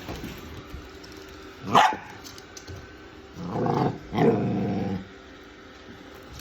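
Pet dog barking: one short, sharp bark about two seconds in, then two longer, drawn-out barks a moment later.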